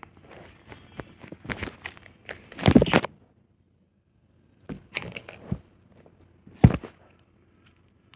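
Slime being squeezed and poked by hand, making irregular crackling squelches. The loudest squeeze comes about three seconds in, followed by a short pause, then a few more squishes.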